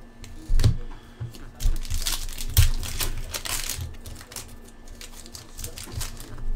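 Foil wrapper of an Upper Deck SPX hockey card pack crinkling and tearing as it is opened by hand. The rustling is loudest from about two to four seconds in, with a few sharp clicks of cards being handled.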